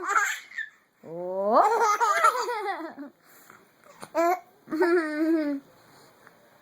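Baby laughing in four high-pitched bursts: a short one at the start, a long one about a second in that rises and wavers in pitch, then two shorter ones near the end.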